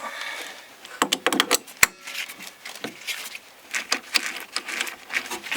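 Irregular clicks, knocks and clatter of hard objects being handled, with one sharp knock about two seconds in.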